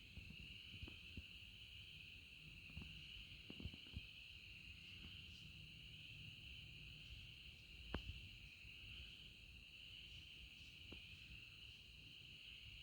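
Steady high-pitched insect chorus, with a few faint scattered clicks and one sharper click about eight seconds in.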